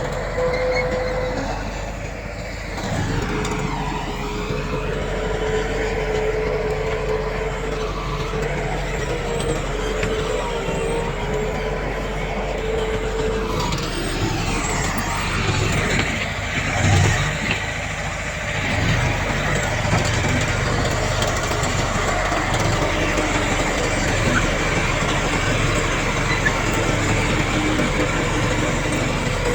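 Diesel engines of a bulldozer and dump trucks working, a continuous engine drone that rises and falls in pitch. A steady whine runs for about ten seconds in the first half, and there is a louder low surge a little past the middle.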